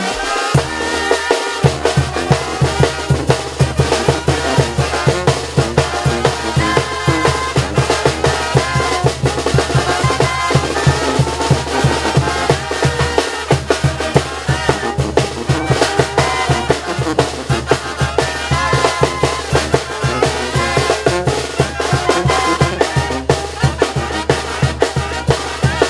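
Mexican banda (brass and wind band) playing live: a steady drum beat with a repeating low bass line under the horns' melody.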